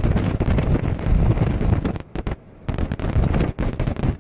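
Strong storm wind buffeting the microphone in gusts, with a short lull about halfway through.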